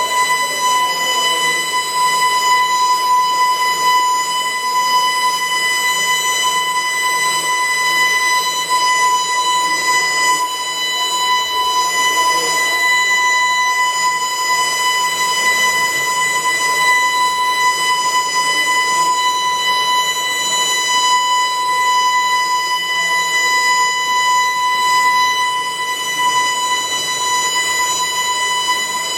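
Evacuation alarm sounding one loud, steady, unbroken high tone, with a faint murmur of voices underneath.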